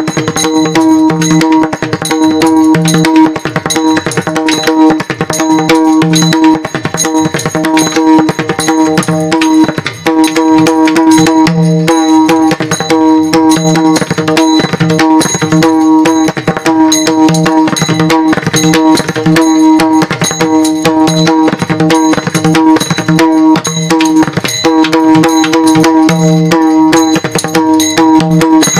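Instrumental devotional music: fast, continuous hand-drum strokes over a steady held tone, without singing.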